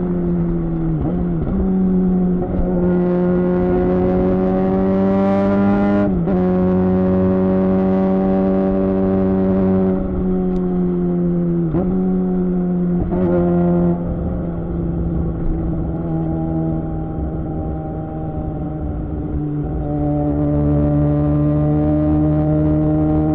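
Suzuki GSX-R600 inline-four with a Yoshimura R11 exhaust running under way. The engine note climbs slowly and drops sharply at a gear change about six seconds in. It dips briefly twice more around halfway, then holds a steady cruising note.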